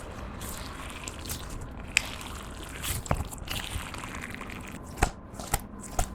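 Clear slime being squished and worked by hand: a sticky crackling with about five sharp clicks and pops, the last three close together near the end.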